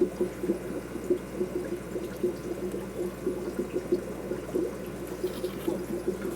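Water in a freshwater aquarium bubbling and trickling steadily, with a dense, irregular patter of small splashes.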